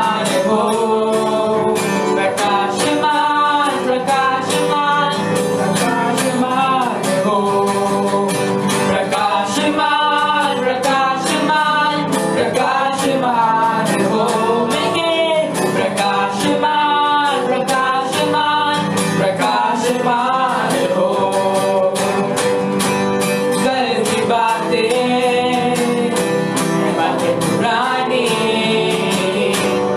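A live worship band playing with a steady beat, guitar and a voice singing over it, in poor livestream sound quality.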